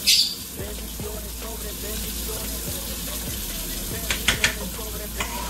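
Kitchen faucet running steadily into a stainless-steel sink. Over it, sharp clicks and scrapes of a knife working a corn cob against a metal cooker pot, loudest just at the start and three quick ones about four seconds in.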